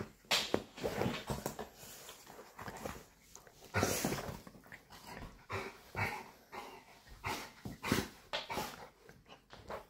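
A dog making short, irregular vocal sounds while it wriggles on its back on a laminate floor.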